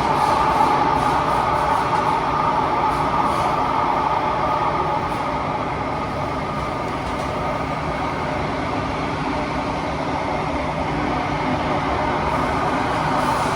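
Interior of a Kawasaki–CRRC Qingdao Sifang T251 metro train running between stations: steady, loud running noise with a strong rush of wind, a little quieter midway.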